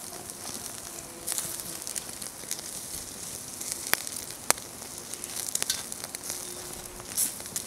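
Pork chops sizzling on a wire grill rack over an open wood fire: a steady hiss with scattered sharp pops and crackles.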